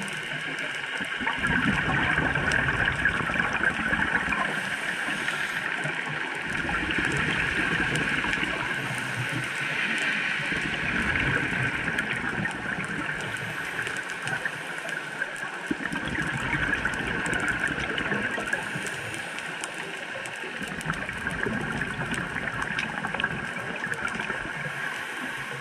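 A scuba diver breathing through a regulator underwater: rumbling bursts of exhaled bubbles, each lasting three or four seconds, come about every five seconds, with a short hiss of inhalation in the gaps between them. Under it all runs a steady underwater hiss.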